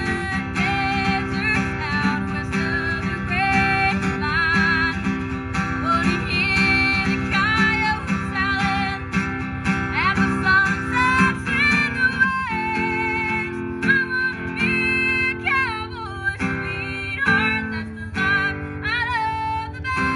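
Live country song: a girl's voice singing with vibrato and quick leaps in pitch over a strummed acoustic guitar.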